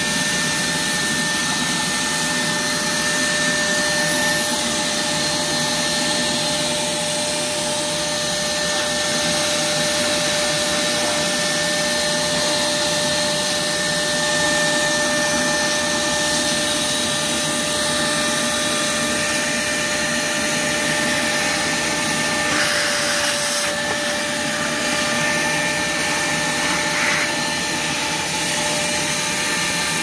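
Hart 6-gallon, 5 HP stainless steel wet/dry shop vac running steadily, a rush of air with a steady motor whine over it, as its hose nozzle picks up sawdust. A couple of brief louder crackles come about three-quarters of the way through.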